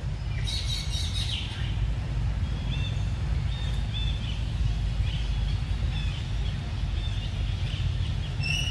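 Birds calling: a quick cluster of high chirps about half a second in, then a run of short repeated chirps, with a clearer whistled note near the end, over a steady low rumble.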